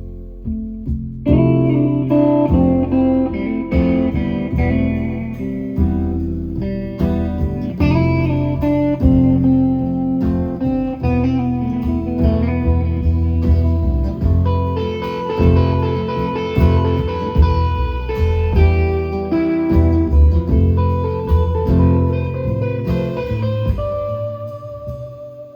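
Live band playing an instrumental guitar break between sung sections of a song. It comes in at full strength about a second in and thins to a single held note near the end.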